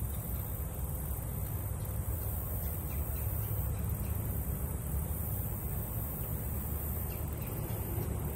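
Steady outdoor creekside ambience: a continuous low rumble under a faint high hiss, with a few faint, brief bird calls.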